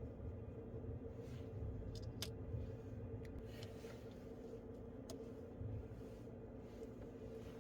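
A few faint, short clicks and ticks over a steady low hum.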